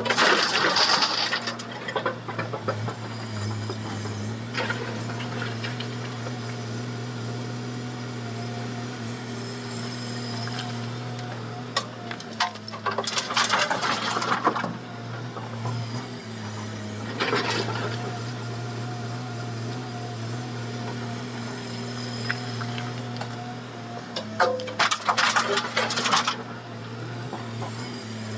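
Komatsu hydraulic excavator's diesel engine running steadily, with four loud, rough surges of a second or two each as the machine works.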